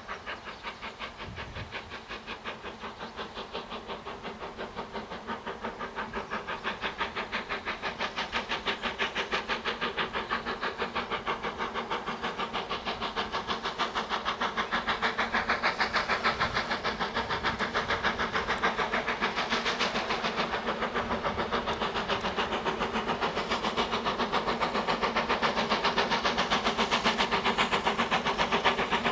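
Steam locomotive hauling a passenger train under steam, its exhaust beating in a fast, even rhythm and growing steadily louder as it approaches.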